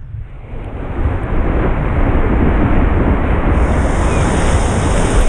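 Rushing whitewash and wind buffeting a camera on the nose of a surfboard as it rides a broken wave, a loud, steady rush with heavy low rumble that builds over the first second.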